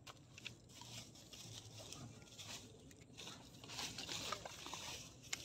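Faint, irregular rustling and clicks from a freshly caught tilapia being handled.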